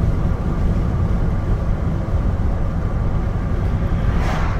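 Steady low rumble of engine and road noise inside a moving vehicle's cab. Just after four seconds in, a brief swish of an oncoming car passing by.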